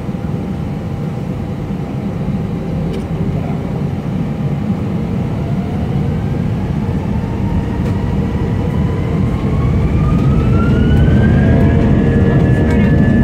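Airbus A320 jet engines heard from inside the cabin: a steady low rumble, with a whine that begins rising in pitch about five seconds in and levels off near the end as the engines spool up.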